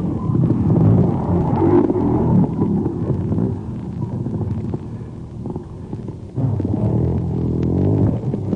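Off-road racing motorcycle engines revving hard, their pitch rising and falling with the throttle; the sound fades about five seconds in and comes back loud a little past six seconds.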